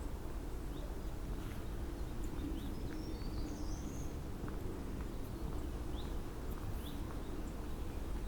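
Wild songbirds chirping in scattered short, high calls, a little busier about three to four seconds in, over a steady low background rumble.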